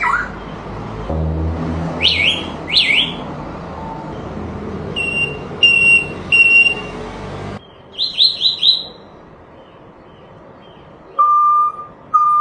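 Parrot mimicking electronic sound effects: two whistled up-and-down sweeps, then three short steady beeps, a quick run of four falling chirps, and two lower beeps near the end.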